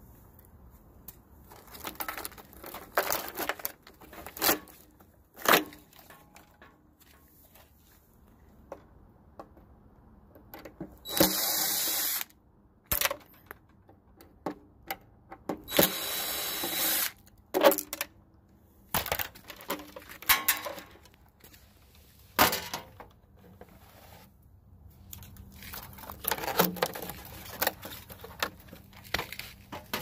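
DeWalt 20-volt cordless driver with a socket extension running twice, about a second each time, backing out the terminal screws on an electric water heater's heating element. Short clicks and metallic knocks of tools and parts being handled come in between.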